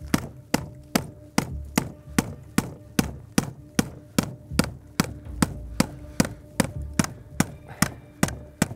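Steady, evenly spaced hammer blows, about two and a half a second, beating on a rifle action frozen shut with ice to knock it loose.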